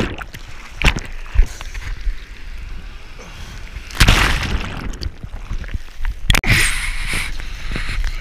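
Seawater sloshing and splashing over a surfer's action camera as it goes under and comes back up, with sharp splashes in the first second and loud rushes of water at about four seconds and again just past six seconds.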